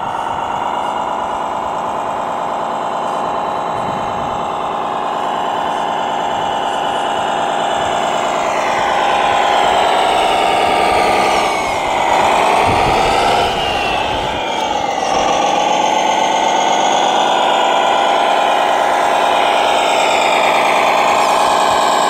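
Whine of radio-controlled model trucks' electric motors and gear drives under way. The pitch holds steady, then dips and rises again about halfway through as the throttle changes.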